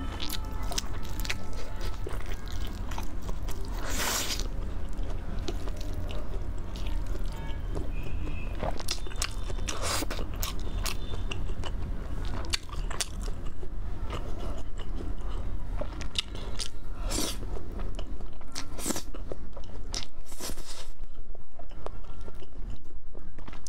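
Close-miked eating: crunchy bites into fried, sauce-coated food and chewing, in scattered crackles with a few louder crunches, over a steady low hum.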